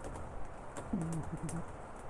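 Rain shower pattering steadily, with scattered sharp drips. About a second in, a short low voice-like sound that dips and then steps in pitch.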